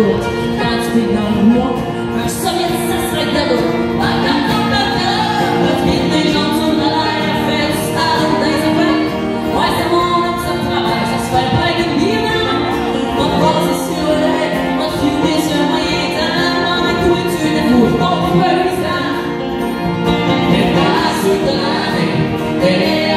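Live country-folk song in French: a woman singing lead over a strummed acoustic guitar and a picked banjo.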